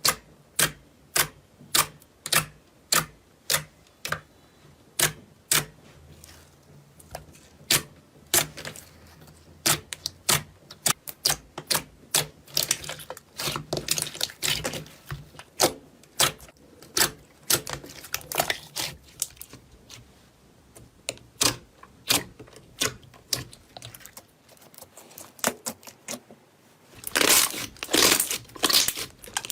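Slime being pressed and worked, giving sharp popping clicks about two a second, then a louder, denser crackling near the end.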